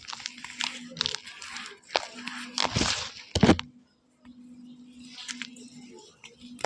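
Close-miked crunching of chalk: crisp snaps and crumbling crackles, loudest a little before the middle, then a brief gap and softer crumbling.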